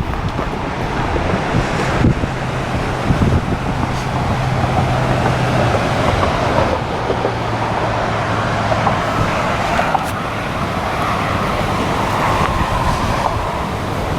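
Strong wind blowing over the microphone with waves breaking on the shore. A low, steady hum sits underneath for several seconds in the middle, like a passing or idling vehicle.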